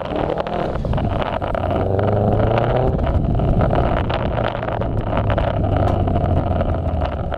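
2004 Subaru Forester XT's turbocharged flat-four engine running as the car drives over dirt and grass, heard from outside the car. The engine pitch shifts up and down over the first few seconds, then settles into a steady low drone, with many short knocks and clicks over it.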